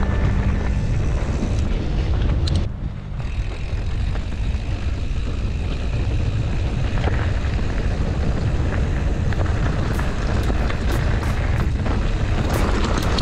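Wind rushing over the camera microphone, with tyre rumble from a mountain bike rolling fast down a dirt trail. The level dips briefly about three seconds in, and sharp rattles and knocks from the bike over bumps come in the last few seconds.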